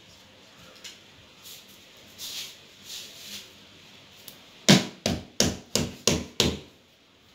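Six sharp knocks in quick succession, about three a second, starting a little past halfway, the first the loudest. A few soft rustles come before them.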